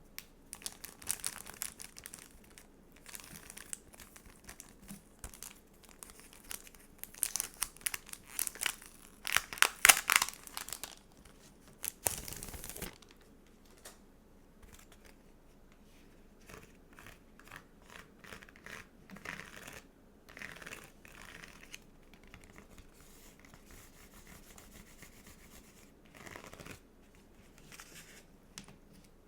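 Sticker sheets and their plastic packaging handled close to the microphone: irregular crinkling and peeling, busy and loud in the first half, then sparser and softer for the rest.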